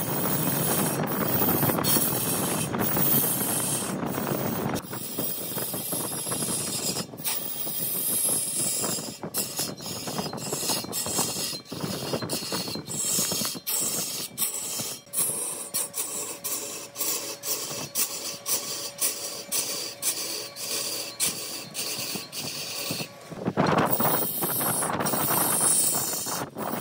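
Wood lathe turning a workpiece, a cutting tool shearing the spinning wood with a steady hiss broken by frequent abrupt short gaps.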